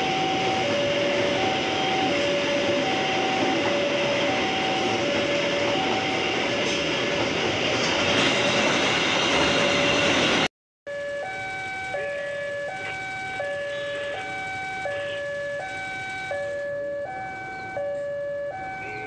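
Railway level-crossing alarm sounding a steady two-tone warning that alternates between a lower and a higher tone about every two-thirds of a second, the signal that a train is coming through. For the first ten seconds it rings over the loud rushing of a passing train. After an abrupt cut about ten seconds in, the alarm goes on with far less train noise.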